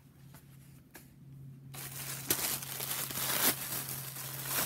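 Plastic packaging crinkling as a cloth nappy is unwrapped, starting suddenly about two seconds in and staying noisy from then on. A faint steady low hum runs underneath.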